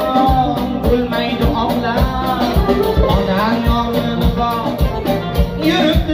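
Uzbek pop band music played live, a keyboard melody over a steady drum beat.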